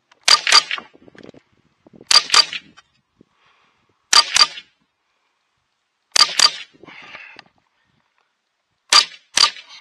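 Semi-automatic .22 rimfire rifle fired in five double taps, one pair of shots about every two seconds, the two shots in each pair a fraction of a second apart.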